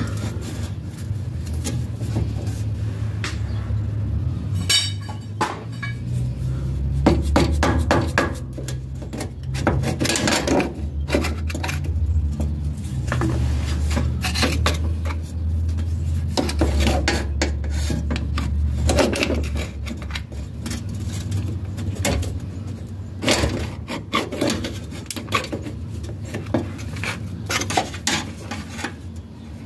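Metal clinking and clanking, many irregular knocks of metal parts or tools under the car, over a low steady hum.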